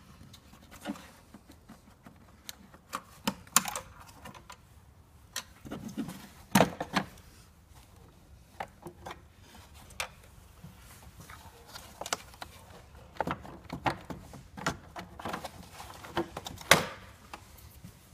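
Irregular clicks, knocks and light clatter of hand tools and plastic engine-bay parts being handled, with the two loudest knocks about six and a half seconds in and near the end.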